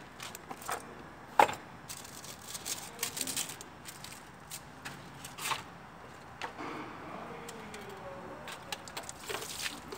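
Small clicks and knocks of parts and tools being handled on a workbench, with one sharp click about a second and a half in.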